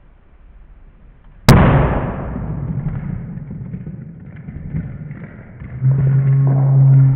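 A sealed vessel of liquid carbon dioxide, made from dry ice, bursts under pressure with one sharp, loud pop about a second and a half in, followed by a long fading rumble. Near the end, a steady low humming tone starts.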